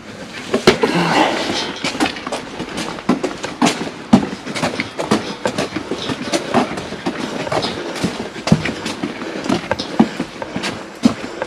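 Footsteps on paving slabs with irregular knocks and rattles as a long steel beam (RSJ) is carried by hand.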